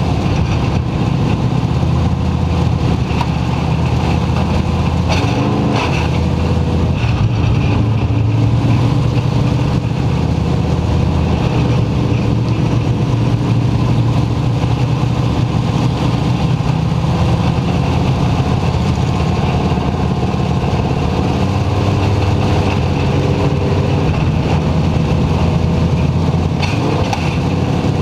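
Dirt-track race car engine running hard at racing speed, heard from inside the cockpit, loud and steady with its pitch shifting a little as the throttle comes on and off through the turns.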